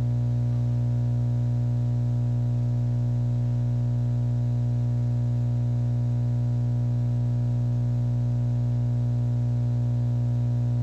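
Steady low electronic hum with a stack of overtones, unchanging in pitch and loudness.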